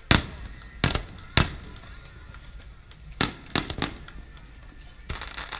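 Aerial firework shells bursting with sharp bangs. Three loud reports come in the first second and a half, then a quick run of three more about three seconds in, with a patch of crackling near the end.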